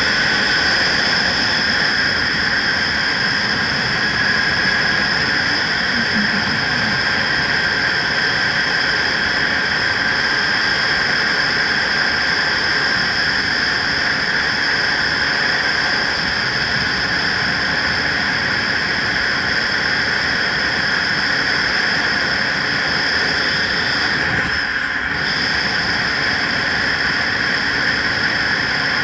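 Steady wind rush and motorcycle engine and road noise, picked up by a camera on the rider's helmet at steady cruising speed, with a few steady high tones over the rush.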